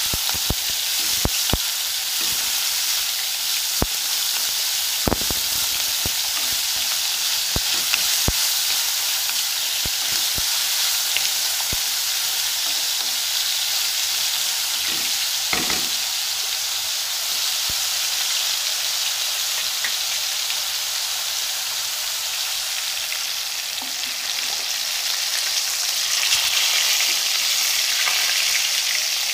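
Chopped red onion and vegetable strips sizzling as they are stir-fried in oil in a wok, with the spatula scraping and knocking against the pan now and then in the first half. Near the end the sizzle turns louder as fish fries in hot oil.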